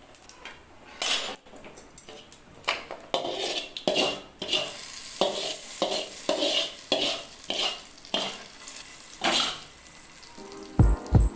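Hot oil tempering of mustard seeds, urad dal and cumin sizzling and crackling in a steel kadai, with a metal ladle repeatedly scraping and knocking against the pan as the tempering is scraped out into the pressure cooker of cooked spinach and dal. Music with a low beat starts near the end.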